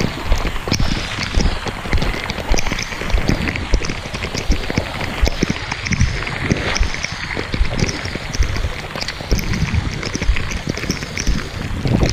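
Hurricane-force wind gusting hard against the microphone in heavy driving rain, a dense rushing roar with rumbling buffets and many sharp ticks of rain hitting, as someone moves through street floodwater.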